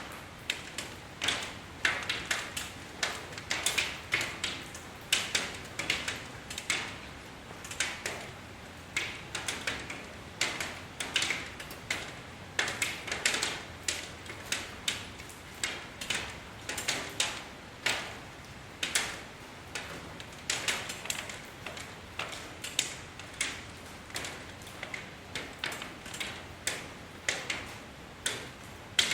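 Raindrops tapping on a hard surface: an uneven patter of sharp ticks, several each second, over a faint hiss.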